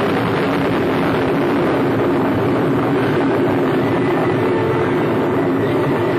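Titan III rocket lifting off: its engines give a loud, steady rush of noise that holds at one level with no break.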